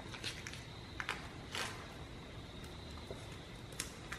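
Faint handling noises: a few short rustles and taps, about four, as a string line is stretched and taped across the tyres, over a faint steady high-pitched hum.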